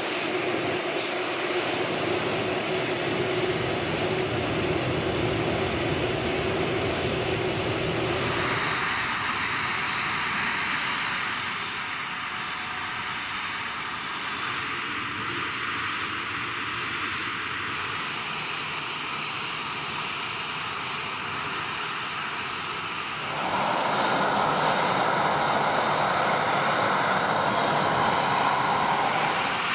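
Boeing 737-400's CFM56 turbofan engines running at low power, a steady jet rumble and hiss with a thin high whine. The sound changes abruptly twice, about 8 seconds in and again near 23 seconds, and is louder in the last stretch.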